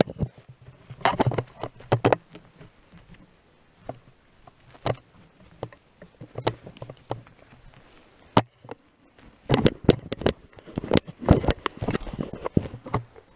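Handling noise from a camera being moved about against clothing: irregular knocks, clicks and fabric rustling in short clusters, with a denser run of rubbing and knocks near the end.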